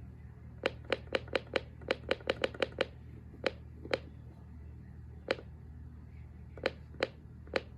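Buttons on a weather alert radio being pressed over and over, more than a dozen sharp clicks at uneven spacing, a quick run of them in the first three seconds and then a few slower ones, over a steady low hum.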